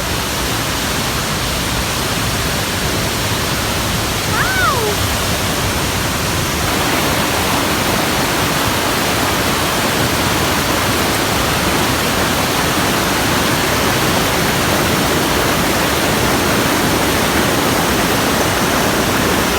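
Waterfall pouring: a loud, steady rush of falling water, with one short falling call about four seconds in.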